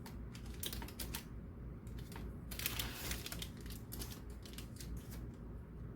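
Light irregular clicks and taps of a fork pressing and crimping the edges of pie-crust circles, with a denser scratchy patch about two and a half seconds in.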